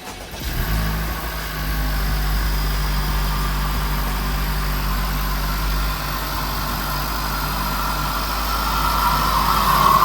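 Honda Civic Type R's turbocharged 2.0-litre four-cylinder idling steadily, with a freshly installed cold air intake. The idle note steps down slightly about six seconds in.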